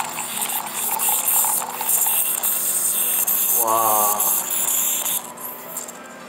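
Brewed coffee poured from an aluminium stovetop moka pot into an enamel mug: a steady hissing stream of liquid that stops about five seconds in. A short pitched tone sounds once partway through the pour.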